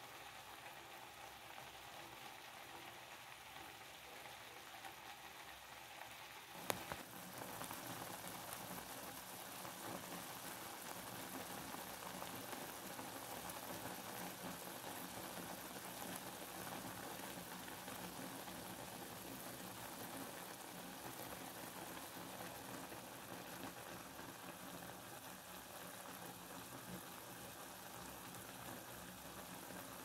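Steady rain, a faint even hiss. A single sharp click comes about a quarter of the way in, after which the rain is somewhat louder and hissier.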